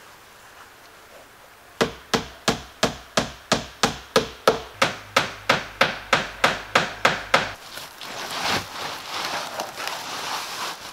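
Hammer nailing bitumen roll roofing down onto a wooden roof edge board: about twenty quick, even blows, nearly four a second, which stop about seven and a half seconds in. After that comes a rustling scrape of the roofing felt being handled and smoothed.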